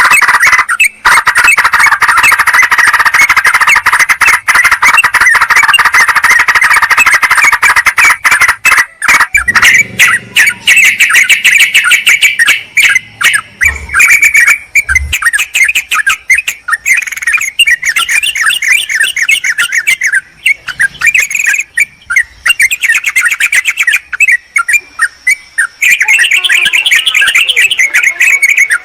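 Yellow-vented bulbuls (trucukan) giving a noisy, agitated chorus of rapid chattering calls, played as a lure call to attract wild bulbuls. The calls are continuous for the first several seconds, then come in repeated bursts.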